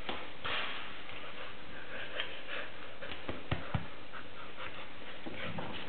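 Groodle puppy panting with her mouth open while being rubbed, a run of irregular soft breaths, with two short soft knocks about three and a half seconds in.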